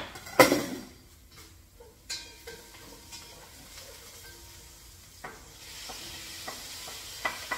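A sharp knock about half a second in, then a few light knocks of kitchenware. Near the end, sliced tomatoes tipped off a cutting board into a hot pot start to sizzle, with quick knocks of the board against the pot.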